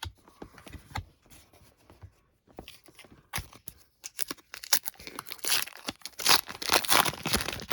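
A trading card pack's wrapper being torn open and crinkled by hand, after a few seconds of light card-handling clicks and rustles; the tearing is loudest in the last few seconds.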